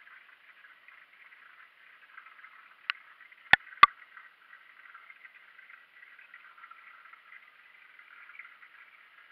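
Faint steady hiss with three sharp clicks a little under three seconds in, the last two close together and loudest.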